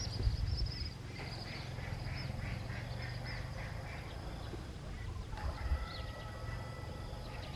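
Birds calling in quick, repeated high notes over a low steady hum; a thin steady tone joins in about two-thirds of the way through.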